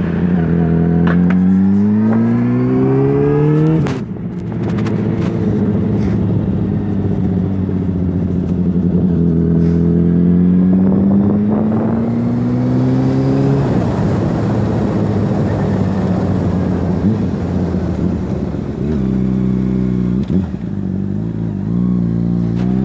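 Honda CBR600RR's inline-four engine running under way, its pitch rising twice as the bike accelerates, with a sudden drop at a gear change about four seconds in. In the middle the engine gives way to a stretch of steady wind rush, and near the end it settles to a steady low note.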